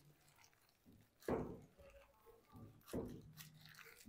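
Plastic-gloved hand kneading a soft mashed potato and cheese mixture in a glass bowl: faint squishing, with two louder squishes about a second and a half apart.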